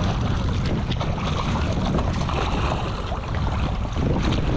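Strong wind buffeting the microphone with choppy water slapping, and a hooked fish splashing and thrashing at the surface beside the boat.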